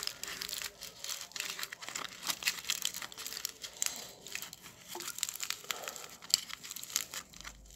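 Aluminium foil crinkling as it is handled and folded by hand, a continuous run of small crackles.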